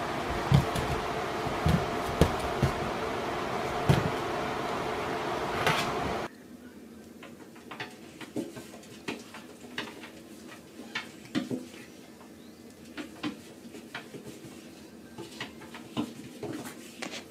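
A steady hum with a few soft thumps as a kitten moves about on a couch. Then, after a cut, quieter scattered clicks and scratches of a small animal's claws on an empty plastic bathtub.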